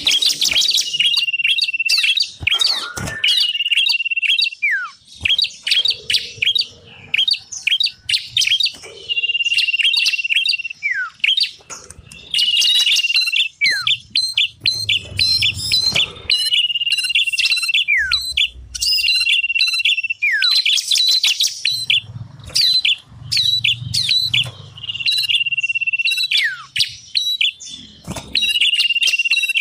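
Small songbirds singing: long steady whistles, each ending in a quick falling note and repeated every couple of seconds, mixed with rapid high chirps.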